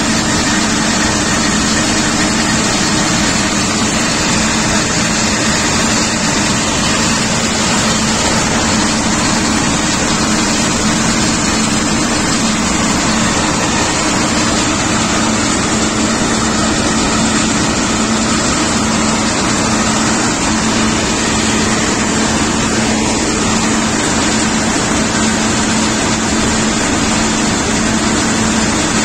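Combine harvester harvesting corn with a John Greaves corn header: engine and header drives running under load in a loud, steady mechanical din with a constant low hum.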